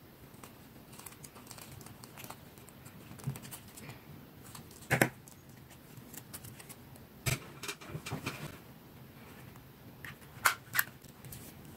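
Crafting sounds from a clear-tape and paper-confetti bookmark strip: scattered sharp clicks, snips and crinkles as it is trimmed with scissors and handled, then a hole punch clacking twice near the end.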